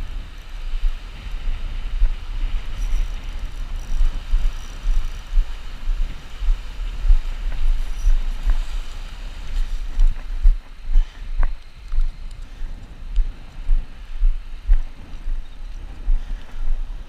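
Wind buffeting the camera microphone, a gusty low rumble with uneven peaks, over a faint wash of breaking surf.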